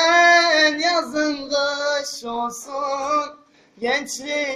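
A young man singing a Turkish türkü unaccompanied, drawing out long notes with a wavering, bending pitch. About three and a half seconds in he stops briefly for a breath, then starts the next line.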